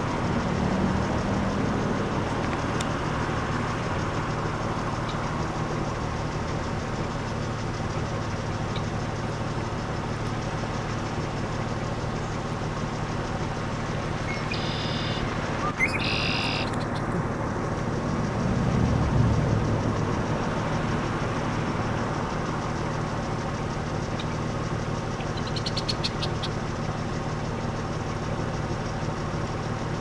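Male red-winged blackbird singing its conk-la-ree song, once about halfway through and again near the end, the second ending in a buzzy trill. Under it runs a steady low rumble that swells briefly about two-thirds of the way in.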